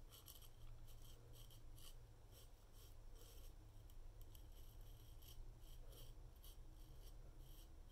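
Faint, quick scrapes of a damascus steel kitchen knife's edge shaving beard stubble off a lathered cheek, about three short strokes a second.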